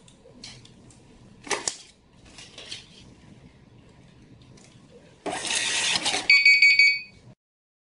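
ISSYZONEPOS ITPP067 80 mm thermal receipt printer: a sharp click about a second and a half in, then about a second of the print mechanism running as a receipt feeds out. Its built-in alarm buzzer follows with a fast run of high beeps lasting under a second, which cuts off suddenly.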